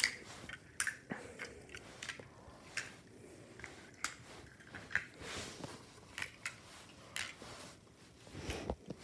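Small die-cast toy cars lightly clicking and clacking against one another at irregular moments as a hand pushes them into a row, with soft rustling of the fabric they stand on.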